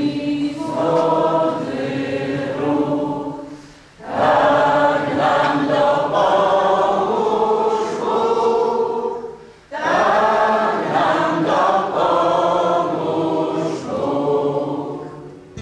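A large group of voices singing a song together in slow, sustained phrases, with short breaks between phrases about four and ten seconds in.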